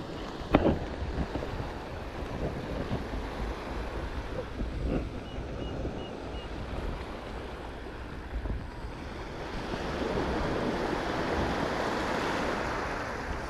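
Sea waves washing against jetty rocks, with wind buffeting the microphone. A wave swells louder about ten seconds in, and there is a brief knock near the start.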